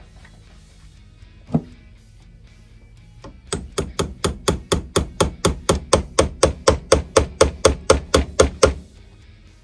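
Hammer blows on a screwdriver handle, driving at the seized breaker cam on a 1929 Ford Model A distributor held in a vise: one knock about a second and a half in, then a quick, even run of about two dozen knocks, four to five a second, stopping shortly before the end. The cam is stuck fast on the shaft after decades without being taken apart.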